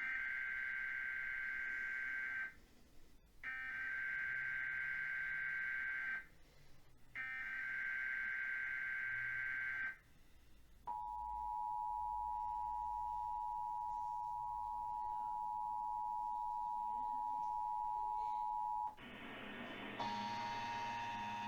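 Emergency Alert System test alert: three bursts of SAME digital header data, then the EAS two-tone attention signal (853 and 960 Hz together) held for about eight seconds. Near the end, after a short burst of noise, the two-tone attention signal starts again.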